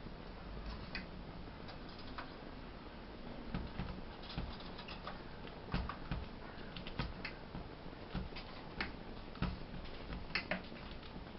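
Irregular small taps and clicks of birds pecking at a bird feeder, coming in quick clusters over a steady background hiss.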